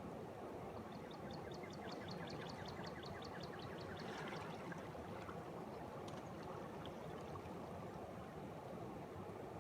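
Spring water bubbling up and flowing steadily. About a second in, a bird sings a fast series of repeated notes, roughly five a second, for about three seconds, and a few single chirps follow later.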